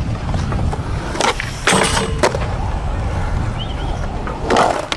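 Skateboard wheels rolling over concrete with a steady rumble. A few sharp clacks come through, about a second and two seconds in, with a louder one near the end.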